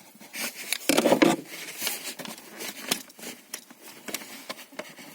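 Plastic clicks, knocks and rustling as the cabin air filter cover is pushed back into its housing behind the glovebox, with a louder cluster of knocks about a second in.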